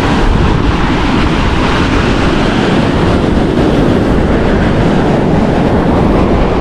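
Steady rumbling wind noise on the microphone mixed with surf washing on the beach.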